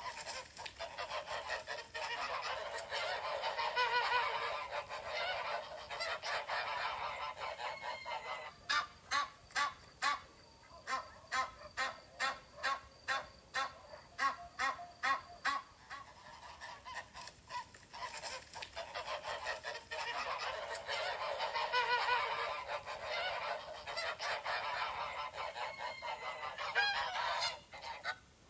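A flock of geese honking, many calls overlapping into a dense clamour. In the middle stretch the clamour gives way to a run of single, evenly spaced honks about two a second, then the dense honking returns and cuts off near the end.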